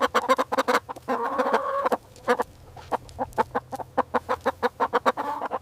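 Chicken clucking: a quick run of short clucks, with a longer drawn-out cluck about a second in.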